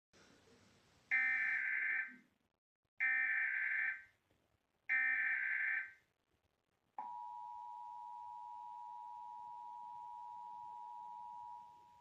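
Emergency Alert System broadcast: three SAME digital header data bursts, each about a second long and about two seconds apart, then the steady two-tone EAS attention signal for about four and a half seconds, marking the start of a Required Monthly Test.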